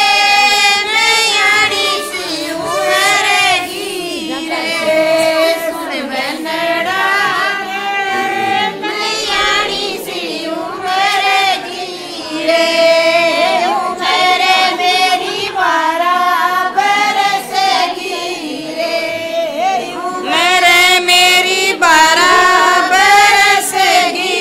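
High female voices singing a banna geet, a Hindi folk wedding song for the groom, in long gliding phrases with short breaks for breath.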